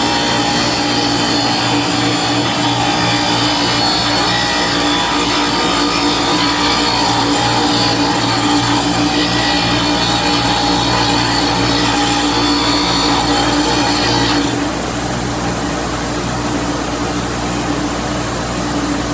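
Bench grinder with an 80-grit wheel running with a steady hum while a drill press casting is ground against it to take off casting dross. The grinding hiss stops about three-quarters of the way through, and the wheel keeps spinning.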